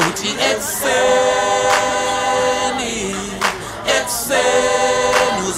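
Music from a hip hop track: a layered sung vocal part holding long notes, with the bass dropped out.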